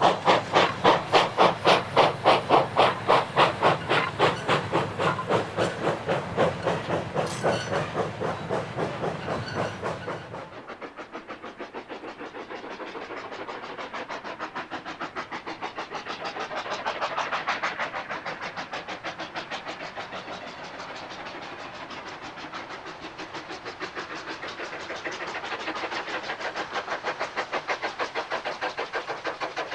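Industrial steam locomotives working hard up a steep bank, a steady rhythm of exhaust beats with steam hiss. For the first ten seconds a train passes close with loud, even beats; then, after a sudden change, a distant tank engine climbs towards the listener with fainter, quicker beats that grow louder near the end.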